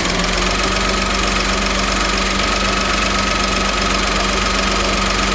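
Idling engine with a rebuilt air-conditioning compressor running, its magnetic clutch engaged, giving a steady hum with a thin steady tone above it. This is normal compressor operation, with no whine.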